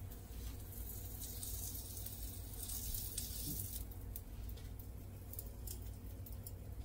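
Dhal puri cooking on a hot tawa: a soft sizzle that swells for a couple of seconds and then fades, over scattered light crackles and a steady low hum.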